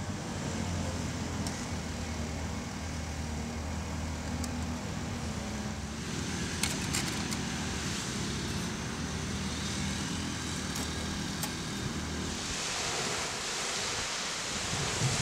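Steady low rumble of distant road traffic. A louder hiss comes in near the end.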